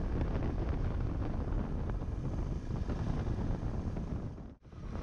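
Wind noise buffeting the GoPro's microphone on a motorcycle riding at speed, a steady rushing noise. It drops out sharply for a moment near the end.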